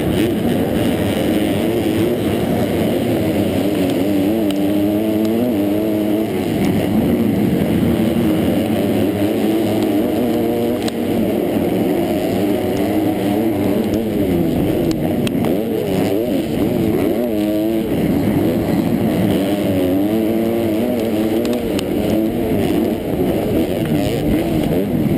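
Motocross bike engine at racing speed, revving hard with its pitch repeatedly climbing and dropping as the throttle is worked on and off, heard close up from on the bike itself.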